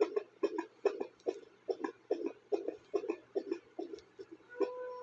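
Fetal heartbeat through a handheld fetal Doppler's speaker: an even train of whooshing pulses at about two and a half a second, a normal fetal rate of around 140 beats a minute. A short steady tone sounds near the end.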